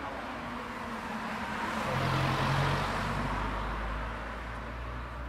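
A car driving past, its tyre and road noise swelling to a peak about two to three seconds in and then fading, with a low engine hum that starts at the swell and keeps going.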